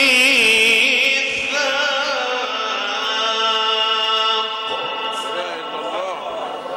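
A male Quran reciter chanting in the ornate tajwid style into a microphone, drawing out one long wavering melismatic note. The note breaks off about two-thirds of the way through and softer wavering vocal sounds follow.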